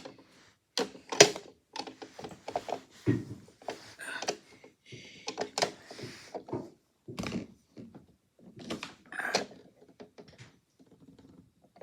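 Irregular knocks, clicks and clatter of hard objects being handled, with a few door-like thuds.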